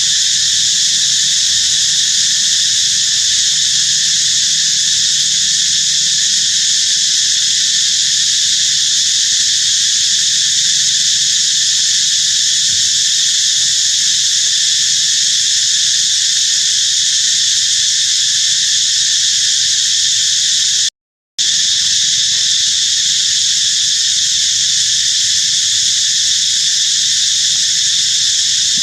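A loud, steady chorus of insects droning, high-pitched and unbroken, with one brief cut to silence about twenty seconds in.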